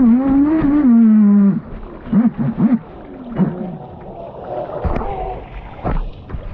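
Traxxas Spartan RC boat's electric motor whining, its pitch rising and falling with the throttle, then cutting off abruptly about a second and a half in as the boat comes off the power. Afterwards only fainter short sounds remain.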